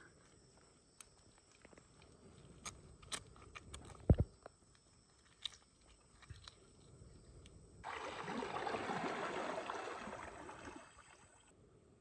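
Small clicks and taps of a stick and a lime against a stone mortar of chili paste, with one louder low knock about four seconds in. About eight seconds in, a steady rushing noise starts suddenly and cuts off just as suddenly a few seconds later.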